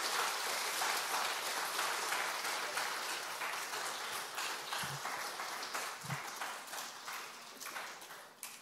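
A congregation applauding, the clapping slowly dying away.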